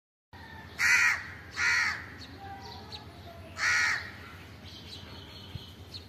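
A bird calling loudly three times: two calls close together in the first two seconds and a third just before four seconds in.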